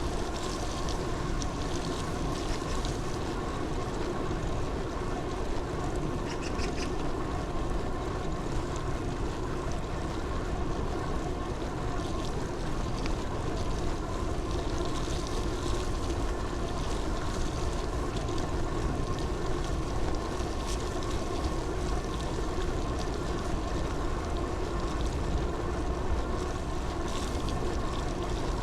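Steady vehicle ride noise: a constant engine or motor hum under an even rushing noise, unchanging throughout.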